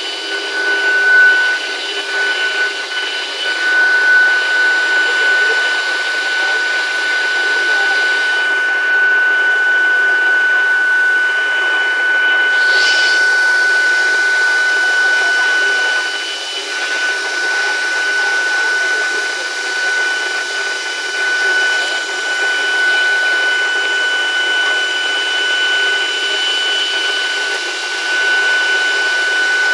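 CNC door router spindle cutting the lock hole in a wooden door: a steady high whine over a continuous machining noise.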